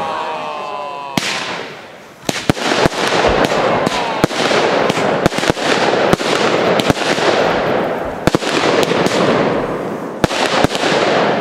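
Aerial fireworks display: a whistling glide during the first second as comets rise, then, from about two seconds in, a rapid irregular series of sharp bangs as shells burst, with a dense crackle between them.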